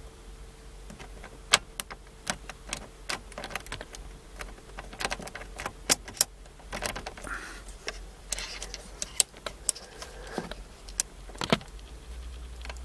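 A car key and keyring jangling with irregular sharp metallic clicks as the key is worked in the ignition lock cylinder while a rod holds down its release button, to pull the cylinder free.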